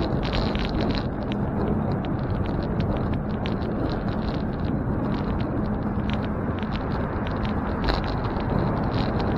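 Steady rumble of wind and road noise while riding a bicycle, with a low hum and many light irregular ticks throughout.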